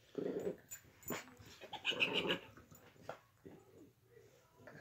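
Dog growling in several short bursts during rough play.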